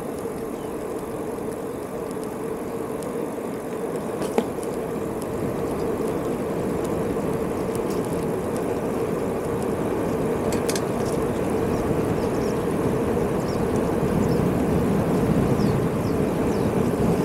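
A bicycle rolling along at speed: steady rolling and rushing-air noise with a constant hum, growing gradually louder, with a couple of faint clicks.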